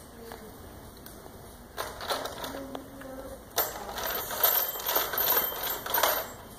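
A rapid clicking and clattering rattle from a hard plastic baby toy being handled. It begins about two seconds in and gets louder and denser past the halfway point.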